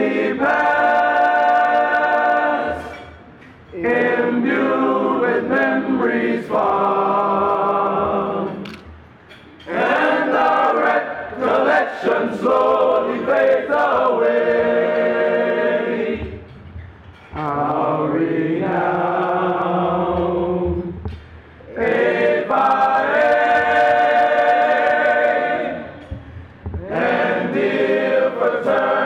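Men's choir singing a cappella in close harmony: slow, held chords in phrases of a few seconds, with short breaks between phrases.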